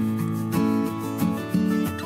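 Background music: an acoustic guitar playing a light, plucked tune with notes changing several times a second.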